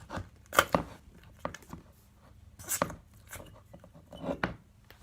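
Overactivated slime being squeezed and pulled apart by hand, giving a handful of short, sharp clicks and tearing pops.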